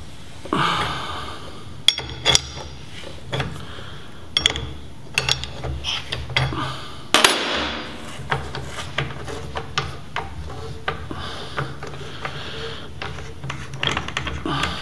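Metal clicks, light knocks and rubbing from a KYB closed-cartridge motorcycle fork being worked by hand: a spanner on the cartridge cap, then the loosened cartridge turned out of the fork tube by its threads. The clicks are scattered throughout, with a longer scrape about seven seconds in.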